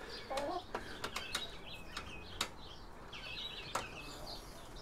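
Scattered sharp clicks and taps of metal parts and tools being handled as expansion slot cards are worked out of an old computer chassis, with birds chirping in the background.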